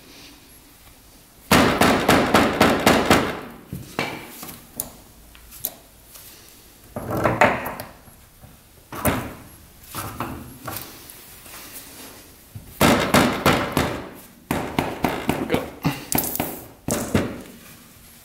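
Rapid hammer blows driving a new CV axle into the front differential of a Polaris Sportsman 500 ATV, struck in several bursts of about five or six blows a second with a few single knocks between.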